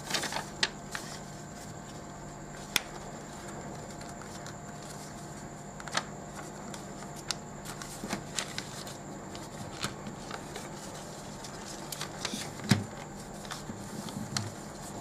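A sheet of blue A4 80 g/m² paper being folded and creased by hand on a tabletop: scattered rustles, crinkles and light taps over a steady low hum, with one louder thump near the end.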